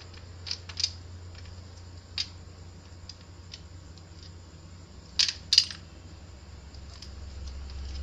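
Sharp plastic clicks and taps from a Honda Vario 150 headlight housing and its chrome reflector being handled and fitted together during a projector retrofit: a few scattered ones, then a louder pair about five seconds in.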